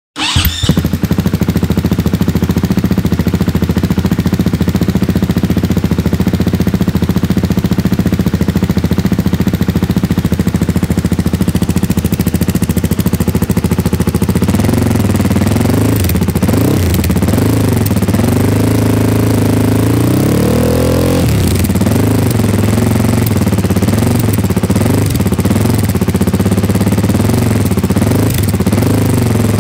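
KTM 500 EXC-F's single-cylinder four-stroke engine idling steadily, then revved repeatedly from about halfway, the pitch rising and falling with each blip of the throttle. One longer rev comes around two-thirds of the way in, followed by quicker, shorter blips.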